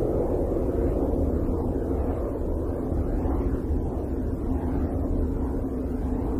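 Steady low droning rumble presented as the sound of the planet Uranus, with soft whooshing swells rising and falling over it about once a second.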